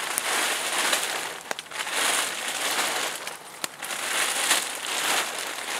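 Plastic tarp crinkling and rustling in surges as it is pulled and shifted over a rope line, with a few sharp crackles among the rustle.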